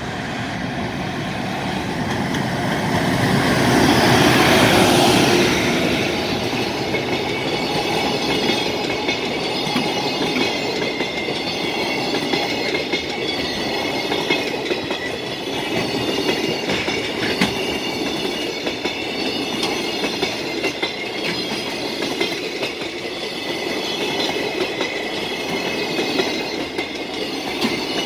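A container freight train hauled by a blue JR Freight EF510 electric locomotive runs past at speed. It is loudest about four to five seconds in as the locomotive goes by, then comes a long steady run of container wagons with wheels clattering over the rail joints. A level-crossing warning bell rings over it throughout.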